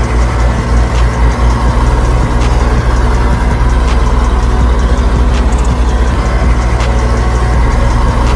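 An engine idling steadily, a deep continuous hum with a few faint clicks over it.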